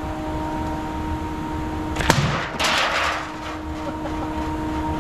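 A homemade slingshot shot: one sharp snap about two seconds in, then a short noisy rush about half a second later, over a steady background hum.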